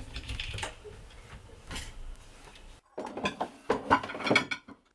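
Dishes and kitchenware being handled: a series of clinks and knocks, breaking off abruptly about three seconds in and resuming with denser clattering.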